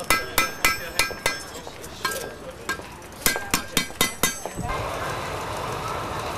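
Sharp metallic clinks that ring on briefly, about three to four a second with a short gap in the middle. About two-thirds of the way through they stop and an engine starts running steadily.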